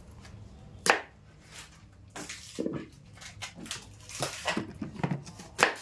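Kitchen knife cutting through peeled cassava root and knocking on a wooden chopping board: a few sharp knocks, the loudest near the end. A couple of short animal calls sound in the background.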